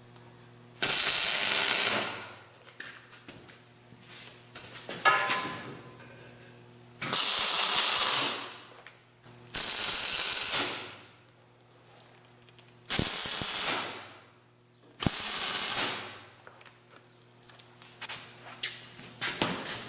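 Arc welder laying tack welds on steel loader brackets: five loud crackling bursts of about a second each, with small metal clicks and clanks between them.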